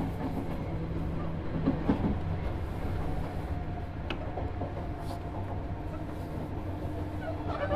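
Sotetsu 7000 series electric train running, heard from inside motor car MoHa 7362, which has a Hitachi GTO-VVVF inverter: a steady hum over wheel-and-rail rolling noise. Two sharp clicks come about four and five seconds in.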